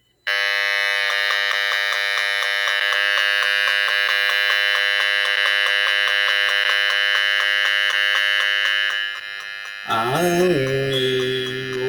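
Acousticom 2 RF detector's speaker giving a loud, harsh, steady buzz as it picks up the signal of a freshly plugged-in cordless phone base. The buzz starts abruptly a moment in and eases slightly near the end.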